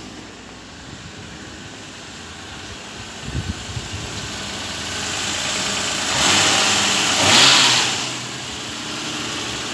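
Nissan RB20 2-litre straight-six engine idling, then revved twice by hand at the throttle linkage, two short rises about six and seven and a half seconds in before it drops back to idle. A few light knocks come a little after three seconds in.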